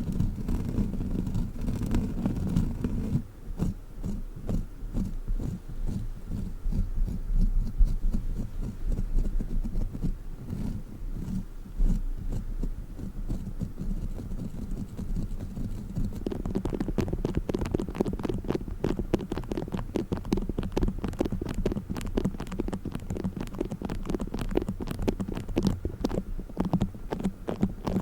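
Close-mic ASMR handling of a sticky crawler toy, heard as irregular low, squishy taps and pulls. About two-thirds of the way in it changes to play foam squished and rubbed directly on the microphone, a dense, fine crackling.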